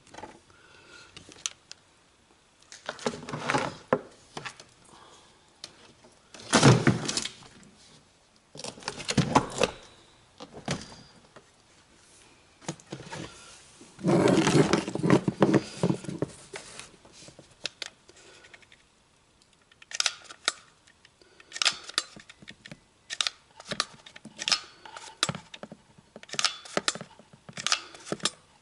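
Hands working plastic parts: irregular rustling and scraping with quick clicks and snaps, the loudest handling bursts in the first half and a run of sharp clicks in the second half, as a tweeter cup is fitted and secured in the door panel.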